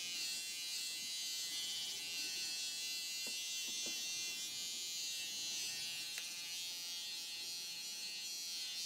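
Corded electric hair clippers running with a steady buzz as they cut close-cropped hair.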